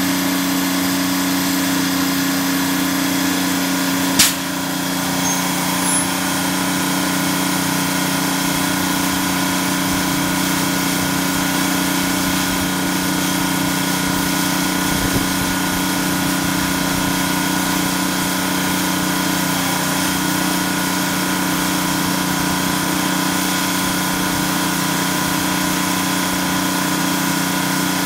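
Pyke rail crane's engine running steadily with an even drone, and a single sharp knock about four seconds in.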